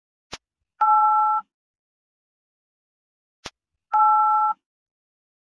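Subscribe-button animation sound effects: a sharp click followed half a second later by a short, steady two-note electronic beep. The pair comes twice, about three seconds apart.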